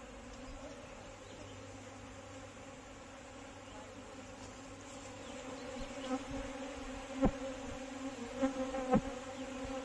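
A swarm of Asian honeybees (Apis cerana indica) buzzing steadily in and around a cloth swarm catcher, the hum growing louder in the last few seconds. A few sharp knocks sound near the end.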